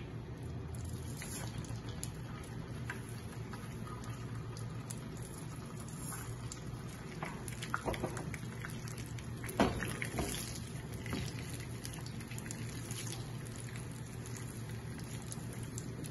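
Thin wheat vermicelli frying in shallow hot oil in a non-stick pan: a steady light sizzle and crackle as it toasts towards golden brown, with a few sharper clicks about halfway through.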